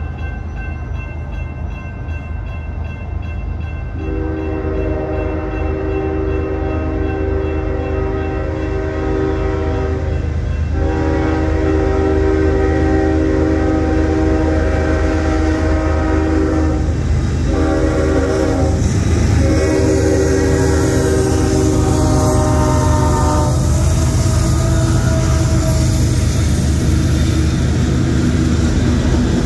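Union Pacific freight train locomotive blowing its horn for the crossing: two long blasts, a short one and a long one, over the steady rumble of the diesel engines. The horn stops near the end and the freight cars roll through with a rising rush of steel wheels on the rails.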